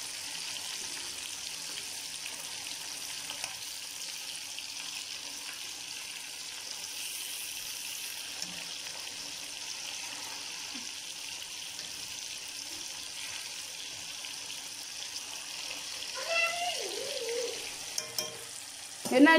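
Masala-coated fish pieces frying in hot oil in a black kadai: a steady, even sizzle of bubbling oil.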